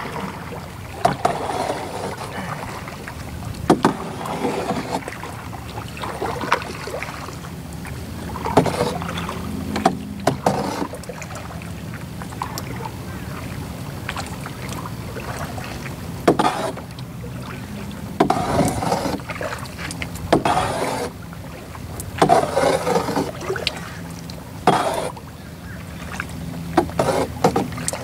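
Canoe paddle strokes: a plastic canoe being paddled, with a swish and splash of the paddle in the water every two seconds or so and occasional sharp knocks.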